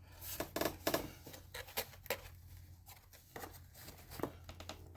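Scattered light clicks and taps of small balsa parts and tools being handled on a workbench, over a steady low hum.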